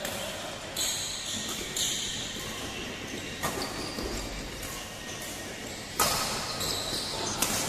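Badminton rally: rackets striking a shuttlecock, a sharp crack every second or two with the loudest about six seconds in, echoing in a large hall. Short high squeaks from court shoes come between the hits.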